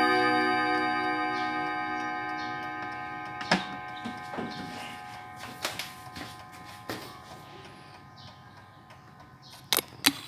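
Antique German mantel clock's nine white-bronze gong rods ringing on after the last chime stroke, the chord fading slowly, with the clock ticking and scattered clicks. Two sharp clicks come near the end.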